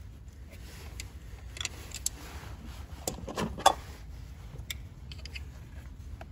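Scattered metallic clicks and clinks of pliers working a spring-loaded hose clamp, with a louder cluster of clicks about three and a half seconds in.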